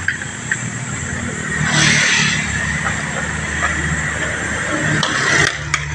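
Road vehicle engine running close by, with a brief rush of noise about two seconds in and a couple of sharp clicks near the end.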